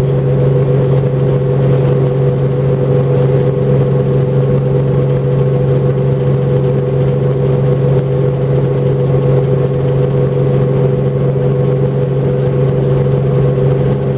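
Helicopter engine and rotor drone heard from inside the cabin, a steady low hum with a higher tone above it, unchanging throughout.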